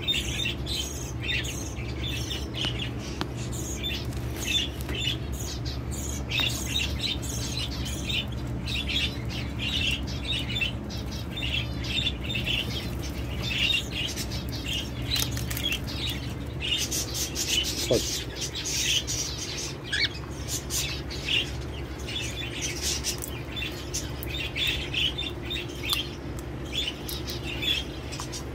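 Canaries in an aviary chirping and twittering busily throughout, with wings fluttering as birds fly about. A steady low hum runs underneath.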